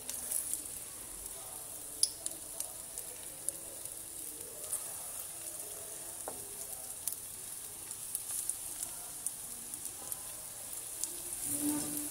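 Batter-coated cauliflower florets deep-frying in hot oil in a steel kadhai as more are dropped in one by one: a steady sizzle with scattered sharp crackles and pops. This is the first, light frying of gobi pakoras.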